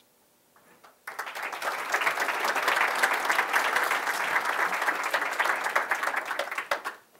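Audience applauding, many hands clapping together; it starts suddenly about a second in and stops near the end.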